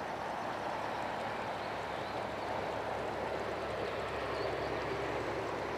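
Steady outdoor background rush with no distinct events, and a few faint, short high chirps over it.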